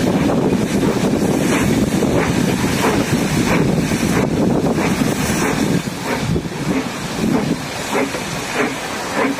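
Steam-hauled passenger train in motion heard from an open coach window: a steady rumble of the coaches running on the rails, with a faint regular beat about three times every two seconds and wind on the microphone.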